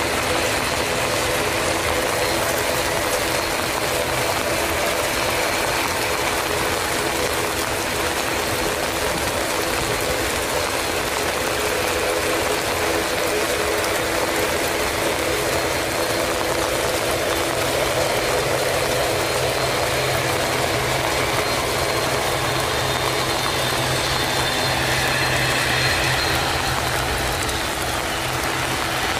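McDonnell Douglas MD-82's Pratt & Whitney JT8D turbofans on final approach: a steady jet roar with a whine in it, a lower hum joining about halfway through, heard over the hiss of heavy rain.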